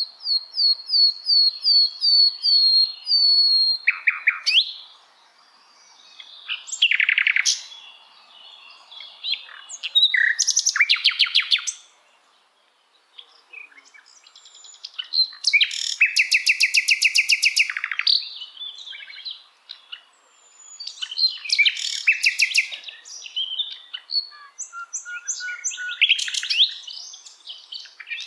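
A sikatan londo singing a varied song: phrases of rapidly repeated high notes and fast trills, each lasting one to three seconds, with short pauses between them.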